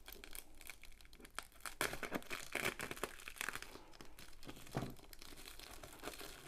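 Plastic wrapping and clear packing tape crinkling and tearing in short, irregular rustles as a taped-up parcel is cut and peeled open by hand.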